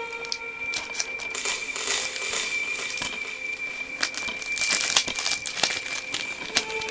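Close rustling and crinkling handling noise with many scattered clicks, busier and louder in the second half, over a steady high tone.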